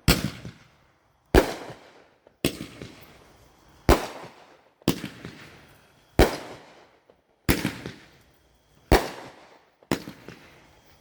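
A large consumer multi-shot firework going off, about nine sharp bangs one after another, roughly one every second and a quarter, each trailing off in a fading echo.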